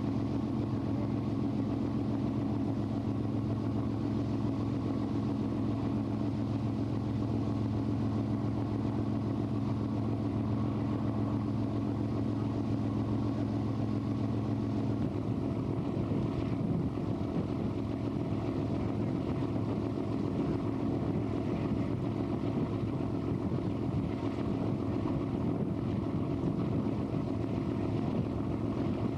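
Steady engine drone of a lake cruise boat heard on board, a low hum of several tones over a rush of wind and water. About halfway through, the low hum changes as some of its tones drop away.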